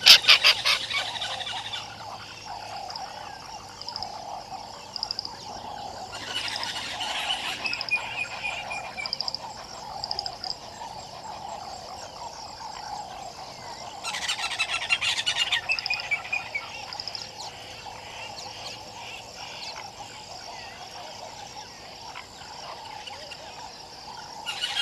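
A steady chorus of frogs calling at a waterhole, with birds calling over it. Every several seconds a burst of rapid rattling calls lasts a second or two.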